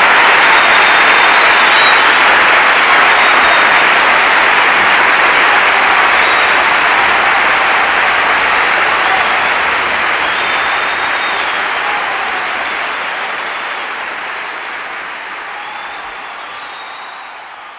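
Concert audience applauding, fading out toward the end.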